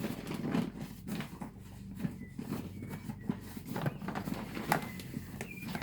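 Scattered light knocks, scrapes and rustling as the dust bag inside a cylinder vacuum cleaner's drum is handled and checked.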